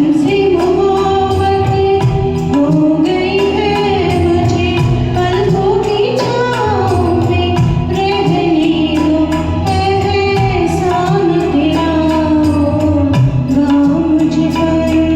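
A woman singing a Hindi film song over a karaoke backing track, with a regular percussion beat under the melody.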